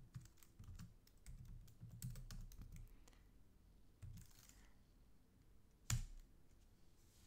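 Faint typing on a computer keyboard: a run of quick key clicks over the first few seconds, then one much louder single keystroke about six seconds in as the command is entered.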